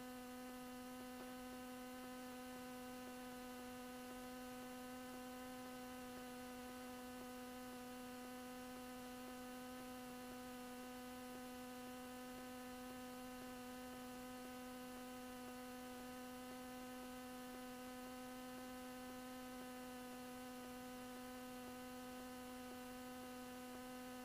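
Faint, steady electrical hum: a low tone with evenly spaced higher overtones that does not change at all. No engine or propeller noise is heard.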